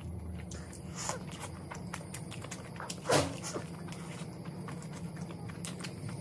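Close-up eating sounds of a person chewing mutton curry and rice by hand: many small wet mouth clicks and smacks. About a second in comes a faint mouth sound that falls in pitch, and about three seconds in a louder, short one that also falls in pitch.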